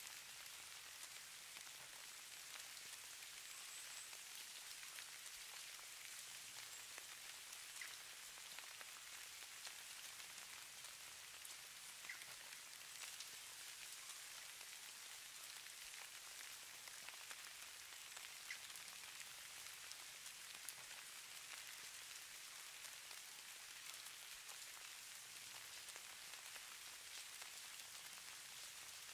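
Falling snow sound effect: a faint, steady, high-pitched patter of countless tiny ticks, as of fine snow or ice grains landing on a surface.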